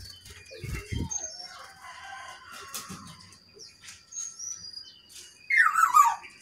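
Songbirds, including a brown-chested jungle flycatcher, calling in short high chirps and whistles, with a few soft thumps about a second in. Near the end a louder call slides down in pitch.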